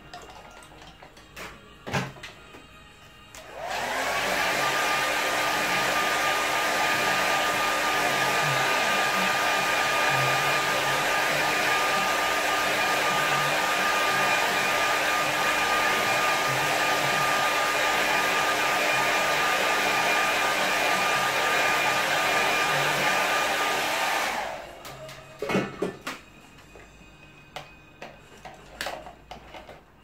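Handheld hair dryer running for about twenty seconds, drying wet watercolour paint on paper. It comes on about four seconds in, its whine rising briefly as the motor spins up, then holds as a steady rush of air with a constant whine. It shuts off near the end, with a few light knocks from handling either side.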